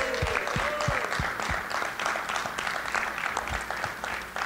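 A small crowd clapping and applauding, with a few cheering voices in the first second.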